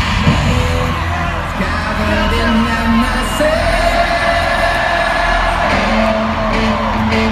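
Loud live rock music at an arena concert, heavy on bass, with a voice singing a held, bending note over it in the middle.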